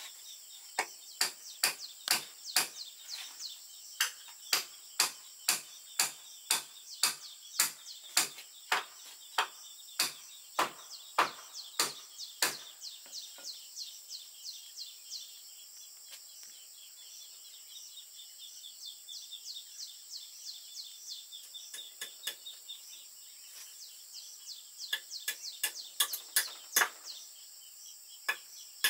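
Hammer striking a wooden frame, a steady run of knocks about two a second, then lighter taps, then a quicker run of blows near the end. A steady high hum of insects and some bird calls run underneath.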